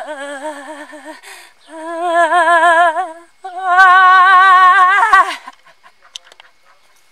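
A woman's voice making three long, trembling, wavering tones in a sung or keening way. The last tone is the loudest and breaks off with a falling drop about five seconds in.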